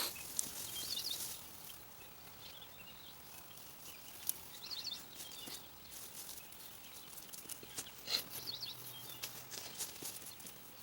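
Quiet outdoor ambience with faint bird chirps coming three times, and a few light scattered clicks.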